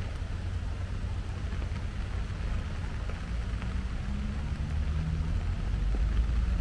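Rainy outdoor ambience: a steady low rumble with a light hiss of rain over it. A faint engine-like hum rises briefly about four seconds in.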